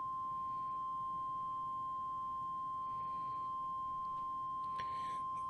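Steady, pure tone a little above 1 kHz: the CW sidetone of a Radioddity QT80 10-meter radio while it is keyed up sending a continuous carrier.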